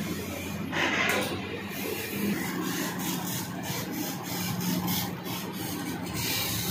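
CNC laser cutter cutting a steel sheet: a steady machine hum under the noise of the cut, with louder rushes of hiss about a second in and near the end.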